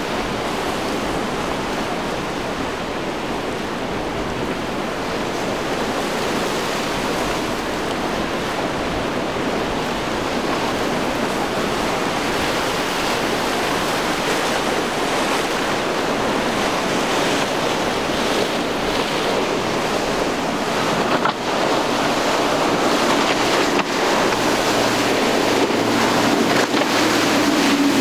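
Ocean surf breaking and rushing, with wind buffeting the microphone. Near the end a boat's outboard engines come in as a low steady hum under the surf as the boat runs close past.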